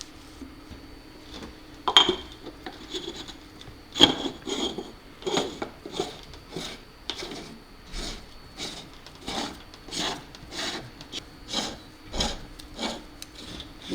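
A towel rubbed in quick repeated strokes, about two a second, wiping drilling and tapping debris off the camera's metal housing and its lid seal. Two sharp knocks come in the first few seconds.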